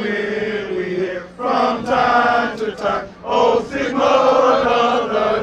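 A group of fraternity brothers chanting a song together in unison, in three sustained phrases with short breaks between them.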